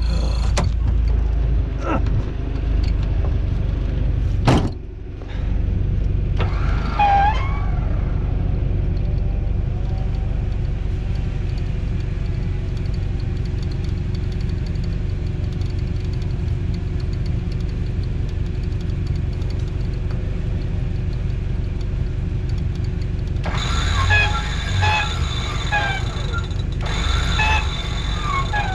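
Toyota truck's engine running steadily with a low rumble. Short bursts of squeaking and creaking come in about seven seconds in, and again repeatedly near the end.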